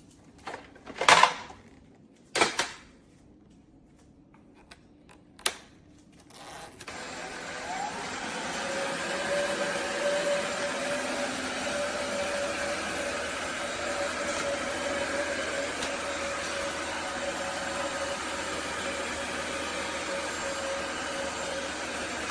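A few sharp clicks and knocks, then, about seven seconds in, a cordless stick vacuum's motor starts and rises to run steadily: an airy hiss with a steady hum-like tone through it.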